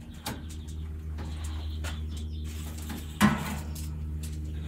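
Metal roasting tray with a rack being set down on the steel grate of a ceramic kamado grill: a few light clicks, then a sharp clunk about three seconds in, over a steady low hum.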